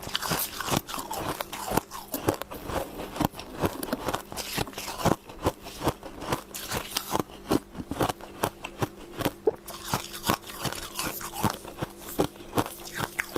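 Close-up crunching and chewing of frost ice, many sharp crisp crunches a second in an uneven run.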